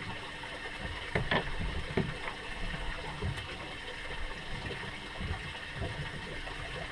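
Water lapping and sloshing against the hull of a drifting fishing boat, with a few light knocks between one and two seconds in.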